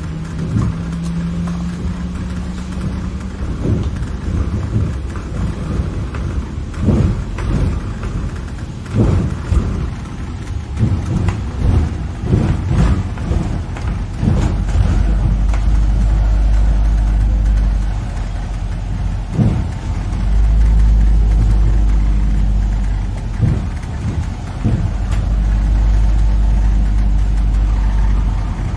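A London bus on the move, heard on board: steady low engine and road rumble with repeated knocks and rattles over the first half. From about halfway the rumble becomes deeper and steadier.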